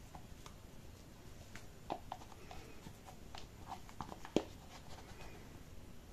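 Silicone spatula scraping beaten egg white out of a plastic bowl and knocking against the bowl and saucepan: faint scattered scrapes and soft taps, with one sharper tap about four seconds in.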